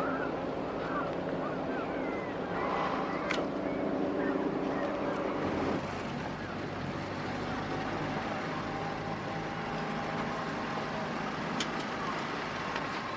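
Harbour ambience: a steady engine hum with wind and water noise, and short seagull cries over it. About six seconds in the hum changes to a car engine running as the car drives along, heard from inside the car.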